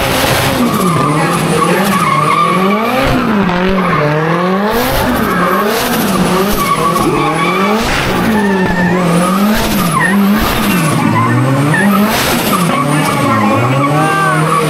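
Drift car with its engine revving up and down over and over, about once a second, while its tyres squeal. A thin high whine rises and falls with the revs.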